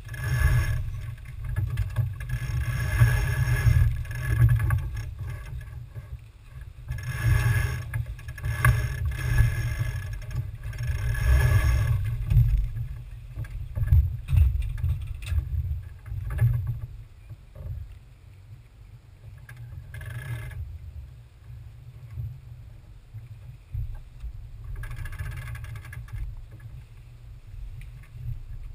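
Wind buffeting the microphone of a camera mounted on a small sailing keelboat under way, a constant low rumble. Louder stretches of rushing hiss come in and out, mostly in the first dozen seconds and again briefly near the end.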